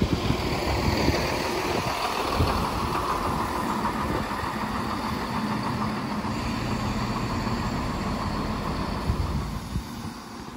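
Heavy vehicle engine running steadily with a low hum, fading away shortly before the end.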